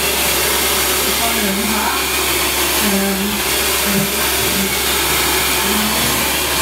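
Hand-held hair dryer blowing steadily, a continuous rushing airflow with a low motor hum underneath, and faint voices just audible beneath it.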